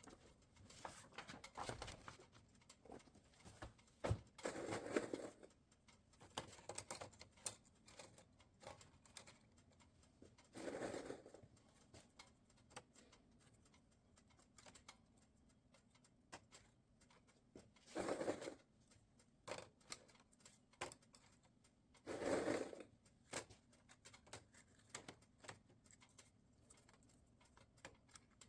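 Quiet workshop handling sounds: scattered light clicks and rustles, with four short scraping or rustling passes about a second long each.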